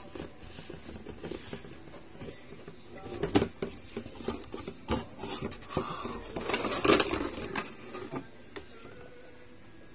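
Cardboard box being opened and a desk fan pulled out of it: irregular rustling, scraping and knocks of cardboard and plastic, loudest a little past three seconds in and again around seven seconds.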